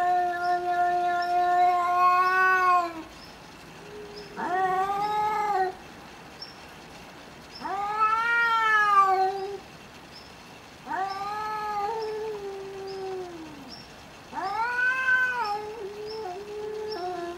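Domestic cats in a face-off caterwauling: five long, drawn-out yowls, each rising and then falling in pitch, with short pauses between. These are the warning yowls of a territorial standoff between cats on the verge of fighting.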